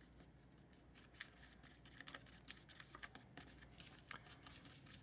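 Small plastic spoon stirring a damp powder-and-water mix in a plastic tray: faint, irregular little clicks and scrapes.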